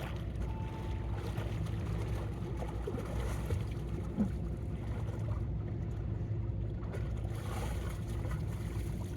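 A steady low engine drone with a constant hum, and a few faint small ticks over it.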